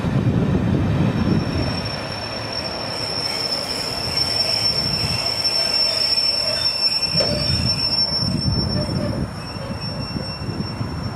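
Coaches of a steam-hauled passenger train rolling past, with a steady high-pitched wheel squeal that starts about a second in and holds almost to the end, over the low rumble of the train.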